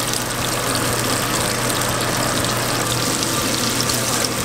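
Flour-dredged mangrove snapper fillets frying in olive oil in a nonstick pan: a steady sizzle, with a low hum underneath.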